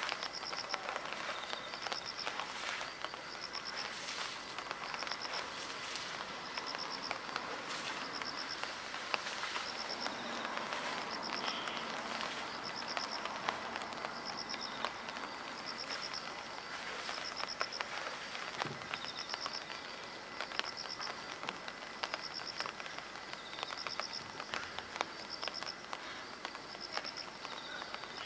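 Summer cicadas droning steadily, with a short pulsed high call repeating about once a second.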